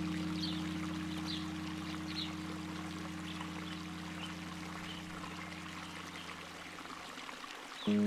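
Soft ambient music: a sustained low synth chord slowly fading out near the end. Under it runs a steady rush of flowing water, with a few faint high chirps.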